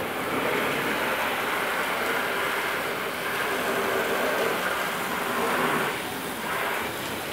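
Garden hose nozzle spraying a jet of water against a car's body panels: a steady rushing hiss that wavers as the stream moves, easing a little about six seconds in.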